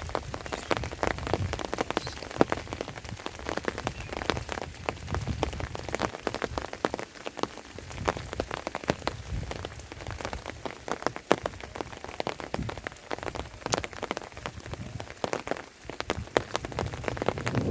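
Rain falling: many separate, irregular drop hits on a surface over a steady hiss.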